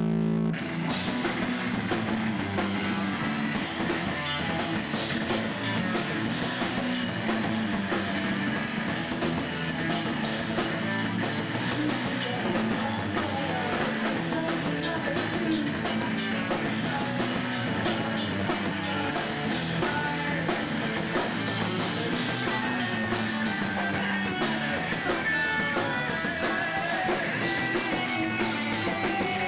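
Live rock band playing electric guitars and drum kit, the full band coming in about half a second in after a held chord, then playing on at an even level.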